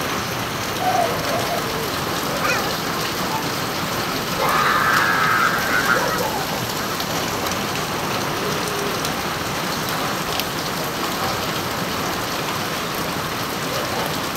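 Steady rain falling on a wet concrete street.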